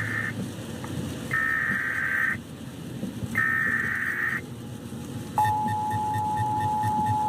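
Emergency Alert System tones for a tornado warning. The end of one SAME header data burst is followed by two more bursts about a second long and a second apart. About five seconds in, the steady two-tone EAS attention signal starts and holds.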